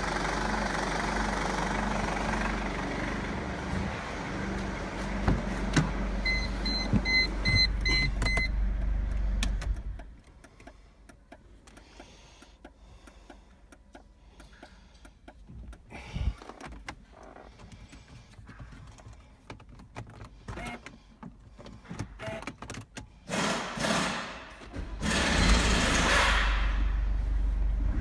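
Mercedes-Benz W203 C-Class 2.2 CDI four-cylinder diesel idling with a steady low rumble, with a run of about six evenly spaced beeps around six to eight seconds in. About ten seconds in the engine sound stops sharply, leaving quiet with small clicks and knocks. After two short bursts of noise the diesel is running again near the end.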